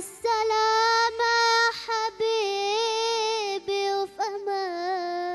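A boy singing an Arabic tarab-style melody into a microphone: long held high notes with vibrato and ornamented turns, broken by a few short breaths. Soft sustained electronic keyboard chords sound underneath.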